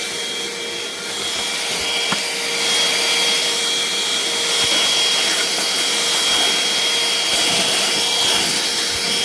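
Canned compressed air blasting into a recorder's cooling fan: a loud, steady hiss, with the fan spun up fast and giving off a steady high whine.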